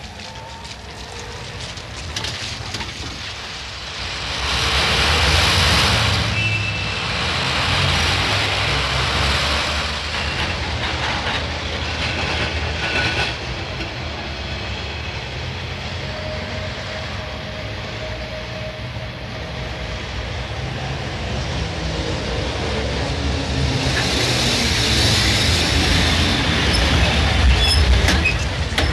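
A rail vehicle, a train or a tram, rumbling and clattering past. The noise swells about four seconds in, eases off midway and builds again toward the end, with a couple of brief squeals.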